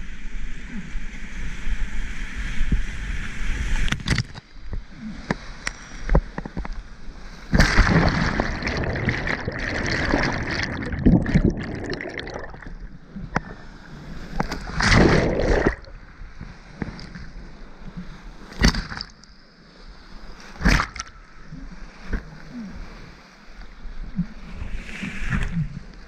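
Whitewater rapids rushing and splashing around a kayak. Water crashes over the action camera about 8 seconds in and again around 15 seconds. Sharp knocks and slaps of water hit the camera throughout.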